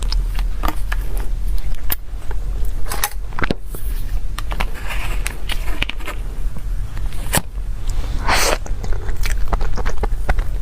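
Close-miked ASMR eating sounds: wet mouth clicks and smacks from chewing a soft tiramisu, with one longer, noisier sound about eight seconds in. A steady low hum runs underneath.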